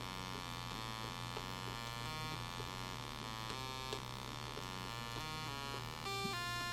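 Arduino-based Auduino digital synth playing a run of notes that change pitch every fraction of a second, each pitch set by a MIDI note from an Alesis SR-16 drum machine's pads, over a steady electrical hum. About six seconds in, a louder, higher note sounds.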